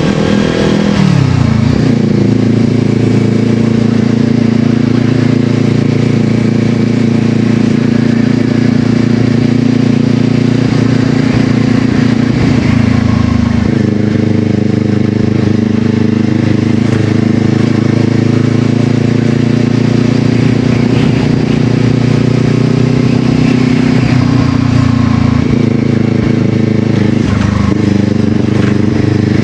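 Brixton Crossfire 500's parallel-twin engine running loud through an FF by Fresco exhaust with its baffle removed, heard while riding. The steady engine note drops and picks up again briefly about a second in, about halfway through, and twice near the end.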